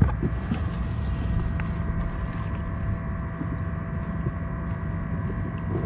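Fishing boat's engine running steadily, a low rumble with a faint steady hum on top, with wind buffeting the microphone.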